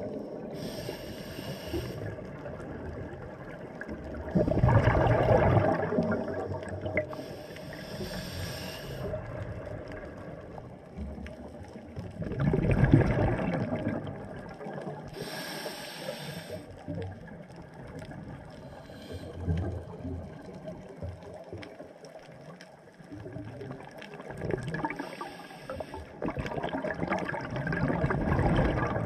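Scuba diver breathing through a regulator underwater: a hissing inhalation every several seconds, each followed a few seconds later by a louder burst of bubbling exhalation.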